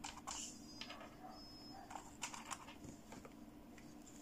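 A few light plastic clicks and taps of hands handling a toy fashion doll, two of them close together about two seconds in.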